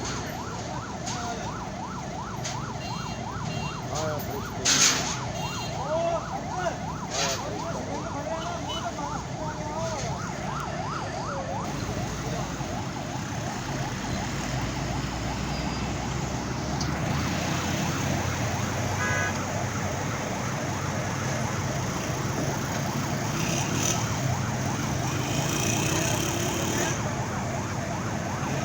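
Fast warbling siren over a steady heavy-engine rumble. The warble fades after about twelve seconds while the engine rumble grows louder. A few sharp knocks come around five to seven seconds in.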